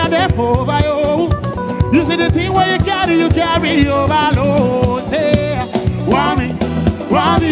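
A man singing live into a microphone over loud backing music with a steady drum beat, his voice gliding up and down in long melodic runs.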